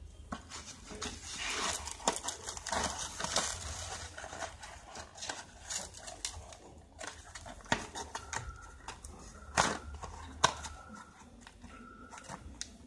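Small cardboard firecracker box being handled and pried open by hand: rustling and scraping of card with sharp taps and clicks, the loudest in the second half.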